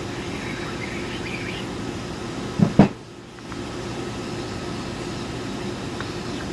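Steady machine-shop hum, like ventilation or running machinery, with two short knocks close together a little over two and a half seconds in.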